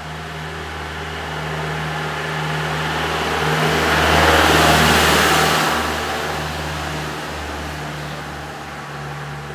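A motor vehicle passing by, growing steadily louder to a peak about halfway through and then fading away, over a steady low hum.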